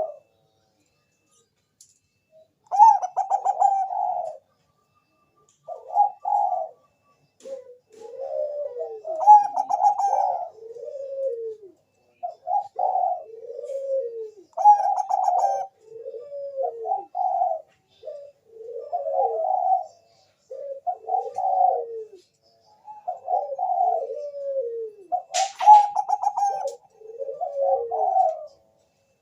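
Zebra dove (Bangkok-type perkutut) cooing in a long run of rolling coo phrases that rise and fall, with short pauses between them. There is one sharp click about 25 seconds in.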